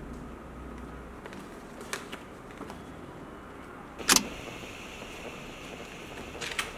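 A glossy paper brochure being handled and folded: a few soft rustles, then a sharp crackle of paper about four seconds in (the loudest sound), and another shortly before the end.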